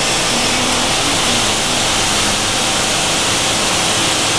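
Steady loud rushing noise that holds even throughout, strongest in the upper range, with no distinct events in it.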